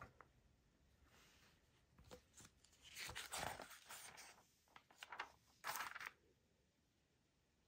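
Faint rustling and crinkling of paper or wrapping being handled, in several short bursts between about one and six seconds in.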